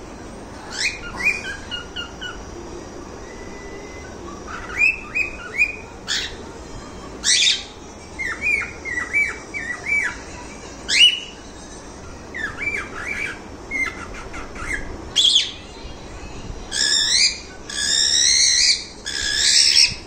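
Pet cockatiels chirping and calling. Strings of short chirps are broken by several sharp screeches, and longer, harsher calls come in quick succession near the end.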